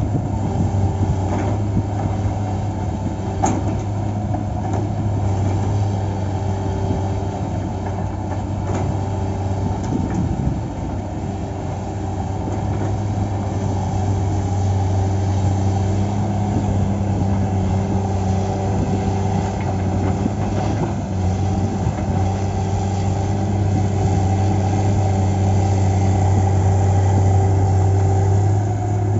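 Heavy diesel engine of a Cat log-loading machine running steadily, with a few sharp knocks in the first ten seconds.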